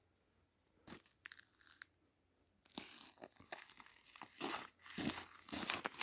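A few faint clicks, then rustling and crunching starting about three seconds in and growing louder, like something crinkly being handled or crushed.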